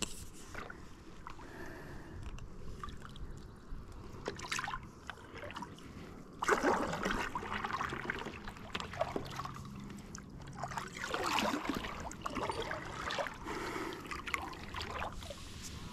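Water sloshing and trickling around a kayak, with scattered small knocks and two louder swishes, about six and a half and eleven seconds in.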